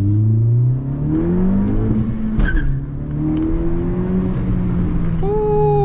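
Honda Civic Si's turbocharged four-cylinder under hard acceleration, revving up through a gear, dropping at a shift, then climbing again. Near the end the turbo lets out a whistle that falls sharply in pitch as the throttle comes off.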